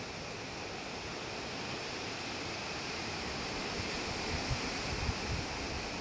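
Wind in the woodland, a steady rustling hiss of leaves and undergrowth that slowly grows louder. A few low bumps of wind on the microphone come in its second half.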